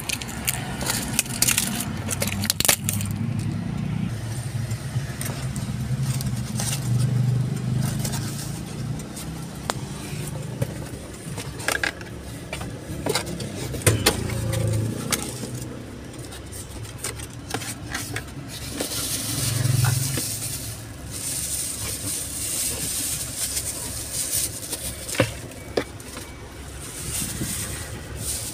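A cardboard parcel box being opened and handled by hand: irregular scrapes, taps and knocks, with a plastic bag crinkling near the end.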